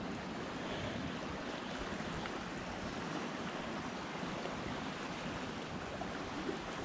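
Steady wash of small lake waves lapping against the bank, mixed with wind.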